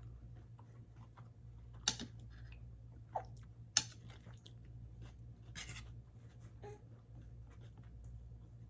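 Close-miked chewing and mouth sounds of someone eating kimchi fried rice. A few sharp clicks come about two, three and four seconds in.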